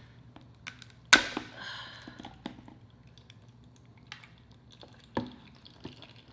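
Boiled lobster claw shell cracking and snapping as it is broken apart by hand: one sharp loud crack about a second in, another about five seconds in, and smaller clicks of shell between.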